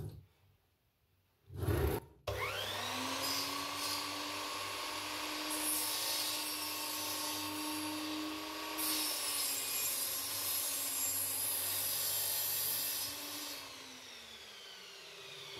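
A sliding compound mitre saw: a couple of short knocks, then the motor starts with a rising whine about two seconds in. The blade cuts through a pine board for several seconds, and near the end the motor is switched off and winds down with a falling whine.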